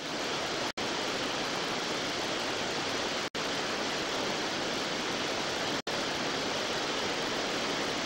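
Steady roar of whitewater in the Teatralny rapid on the Belaya River. It is cut by three brief dropouts to silence, about two and a half seconds apart.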